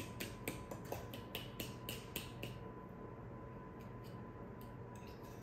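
Fork clicking and scraping against a glass mixing bowl while stirring a butter, egg and brown-sugar mixture, about four light clicks a second, stopping about two and a half seconds in.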